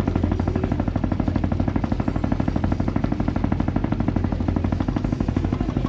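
Diesel engine of the Vega 2 backwater cruise boat running steadily under way: a fast, even chugging of about a dozen beats a second over a low hum.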